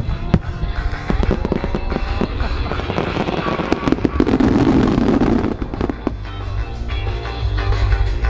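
Fireworks display: rapid sharp bangs and crackles from aerial shells and fan-shaped barrages of comets (star mines), with a dense rushing stretch about halfway through, over accompanying music.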